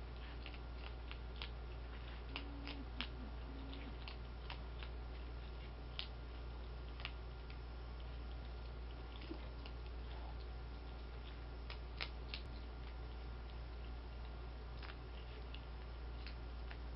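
Skunk eating dry cat food from a bowl, with irregular sharp crunches of kibble, some in quick clusters, over a steady low hum.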